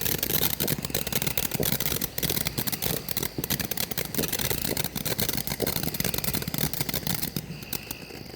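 Small ground firework crackling fast and steadily, dying down near the end.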